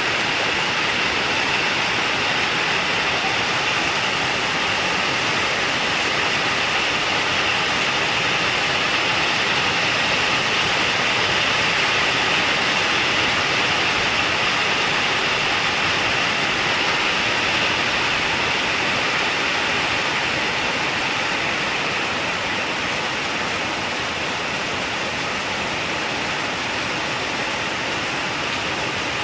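Heavy rain falling in a steady downpour: an even, dense hiss that swells slightly around the middle and eases a little in the last third.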